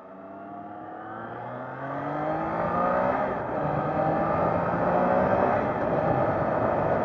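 Triumph Trident 660's inline-three engine accelerating hard, its pitch rising through the revs, with a brief break about three seconds in as it changes up a gear. Wind noise grows with the speed.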